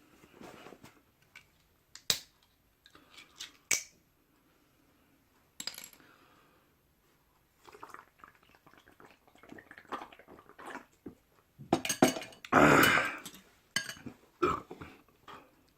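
A person eating Samyang Mala Buldak stir-fried noodles: a couple of sharp clicks of utensils against the bowl in the first few seconds, quiet chewing, then a loud noisy burst of eating about twelve seconds in.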